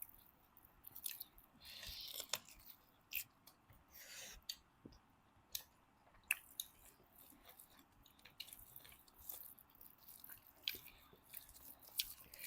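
Faint chewing sounds of people eating, with irregular soft clicks scattered through.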